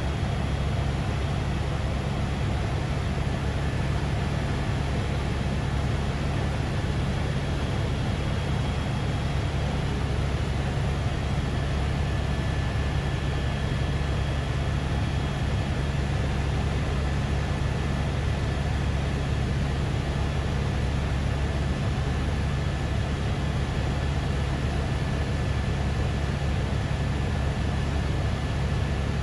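Steady helicopter cabin noise in flight: a constant low rotor drone with a faint steady high whine above it.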